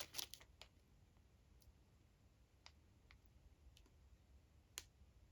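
Trading cards being handled and flipped through, giving a few faint clicks of card on card, with one sharper click near the end; otherwise near silence.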